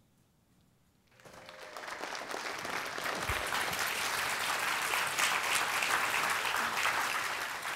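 Audience applauding. The clapping builds up about a second in, holds steady, and begins to fade near the end.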